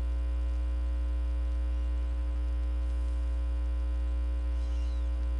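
Steady electrical mains hum, a constant low drone with a stack of even overtones above it.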